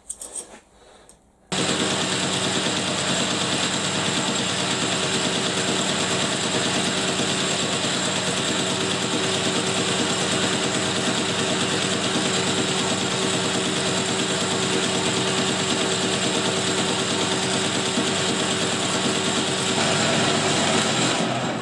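Metal lathe switching on abruptly about a second and a half in and running steadily, its motor and headstock gears giving an even whine, then shutting off and dying away near the end.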